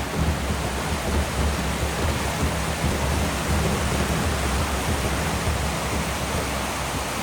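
Steady rush of fast-flowing water, with a low rumble underneath.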